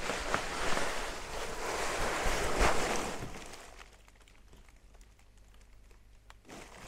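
Therm-A-Rest NeoAir XTherm Max inflatable sleeping pad rustling as a person shifts his weight and lies down on his side on it; the rustle stops about three and a half seconds in as he lies still.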